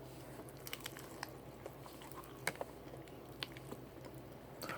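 A person chewing fried chicken close to the microphone, with scattered small wet clicks and crunches of the mouth.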